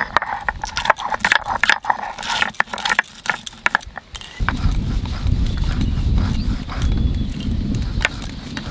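Stone pestle crushing and scraping dry red chillies, almonds, coriander and cumin on a flat stone grinding slab (sil-batta): a fast, irregular run of cracks, clicks and stone-on-stone scrapes. About four seconds in, this gives way to a steady low rumble.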